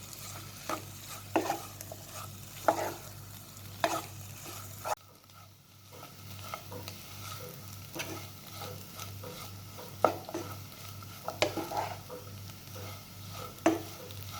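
Soya chunks roast being stirred and scraped around a pan as it dries out on a low flame, with a steady low sizzle. The scrapes come roughly once a second, with a short quieter gap about five seconds in.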